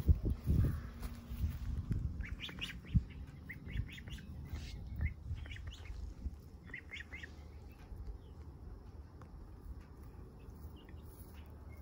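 Domestic goslings giving short, high peeps in scattered little clusters as they settle down to sleep, the peeps thinning out in the second half. A rustle near the start.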